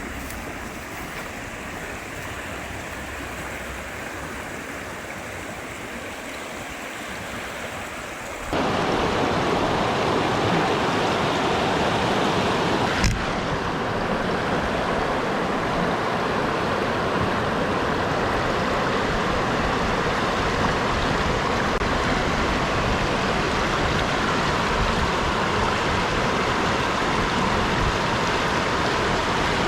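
Steady rush of flowing river water. It becomes suddenly louder about eight seconds in, and a single sharp click sounds around thirteen seconds.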